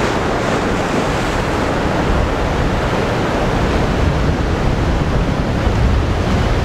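Ocean surf breaking and washing over a rocky shore shelf, a steady loud rush of water. Wind buffets the microphone with a low rumble that grows stronger in the second half.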